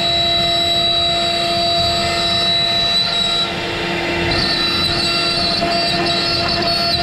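Avid CNC router's spindle running with a steady high whine as its small bit cuts a profiling toolpath in wood, with rough cutting noise underneath. The sound dips briefly about three and a half seconds in, and the whine comes back at a slightly shifted pitch.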